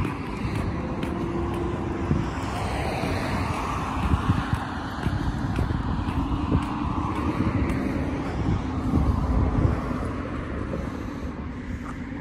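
Road traffic: cars passing on a multi-lane road, a continuous rush of tyre and engine noise that swells and fades as vehicles go by.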